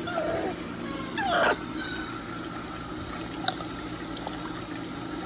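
Bath tap running steadily into a filling tub. Two short falling squeaks come in the first second and a half, the second the louder, and there is one sharp click about three and a half seconds in.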